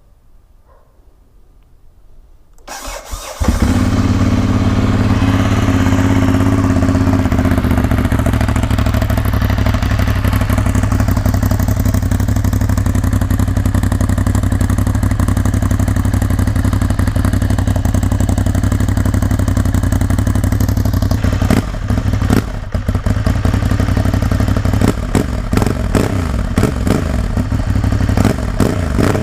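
Ducati Hypermotard 796's air-cooled V-twin started on the electric starter about three seconds in, catching and settling into a steady idle; near the end the running turns more uneven.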